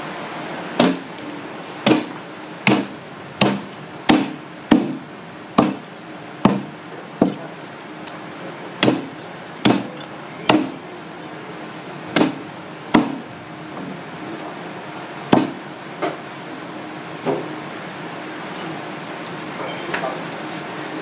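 A heavy blade chopping monkfish on a thick wooden chopping block: a string of sharp chops about one a second, growing fewer and softer over the last few seconds.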